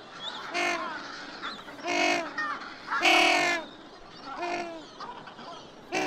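African penguins calling: a series of short calls about a second and a bit apart, the loudest and longest about three seconds in.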